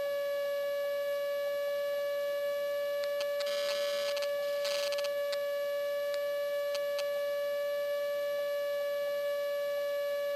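Steady electrical whine at one fixed pitch with its overtones, heard through a light aircraft's headset intercom audio. No engine noise comes through.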